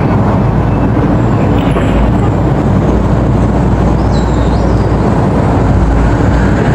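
Excavator's diesel engine running steadily, a loud, even rumble.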